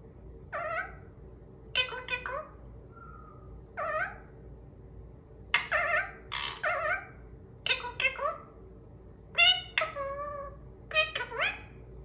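Indian ringneck parakeet giving about eight short bursts of high, pitch-bending squawks and chatter, some of them mimicked words such as "peekaboo" near the end.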